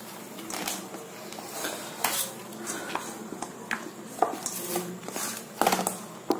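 Hands kneading roti dough in a metal mixing bowl: irregular knocks, clunks and scrapes as the bowl shifts and rings under the pushing. The loudest cluster of knocks comes shortly before the end.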